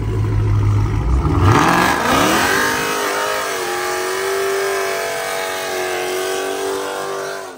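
Dodge Charger V8 doing a burnout. It rumbles low for about a second and a half, then revs climb sharply and hold high and steady while the rear tyres spin against the pavement. The sound cuts off abruptly just before the end.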